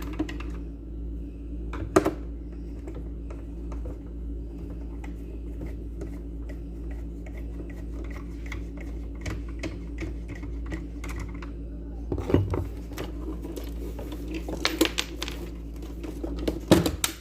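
Small clicks and ticks of a star screwdriver working screws out of a mixer grinder's housing, with a few louder knocks of parts being handled: one about two seconds in, and a cluster in the last five seconds. A steady low hum runs underneath.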